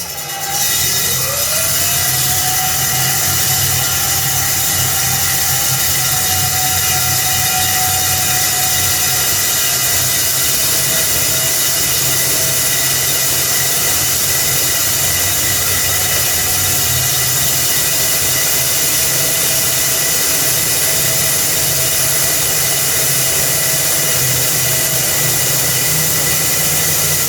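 Electric concrete core drilling machine running with a steady motor whine. The whine rises in pitch over the first second or two, then holds, dropping slightly in pitch about ten seconds in.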